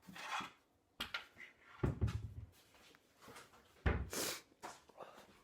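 A few knocks and thuds, the two heaviest about two and four seconds in, with short rustles between them.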